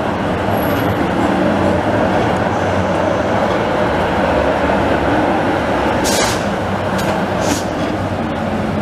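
Yellow-and-red articulated trams rolling past close by on street track, a steady running noise of wheels on rail. In the second half there are a few short, sharp, high-pitched sounds.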